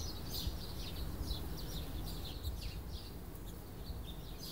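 Small birds chirping in quick, high, short notes throughout, over a low steady hum.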